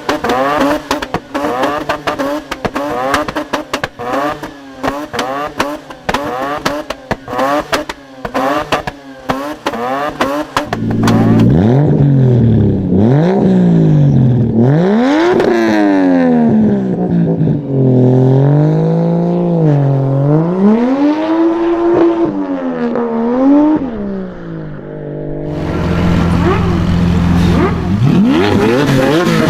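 Car engine with a modified exhaust being revved hard: a rapid string of crackles and pops over quick revs, then from about ten seconds in a series of revs rising and falling in pitch, settling to a steady idle near the end before revving again.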